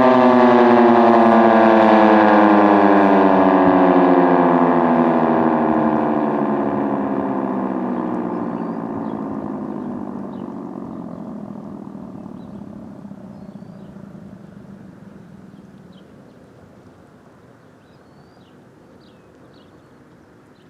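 Sentry 16V1T-B outdoor warning siren winding down after its attack signal. Its tone falls steadily in pitch and fades out over about a dozen seconds, leaving only faint high chirps near the end.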